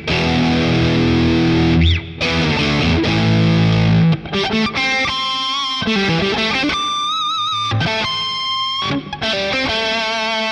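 Fender Stratocaster through a Boss Katana 50 MkII on its high-gain Brown channel, recorded direct over USB: heavily distorted power chords for the first few seconds, then a single-note lead line with sustained, vibrato-wavering and bent notes.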